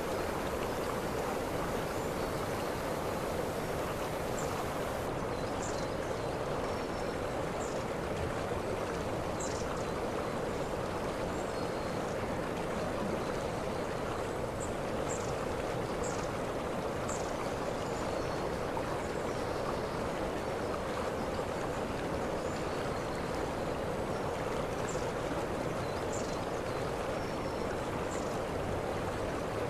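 Waterfall rushing steadily, an even unbroken roar of falling water, with short high chirps now and then.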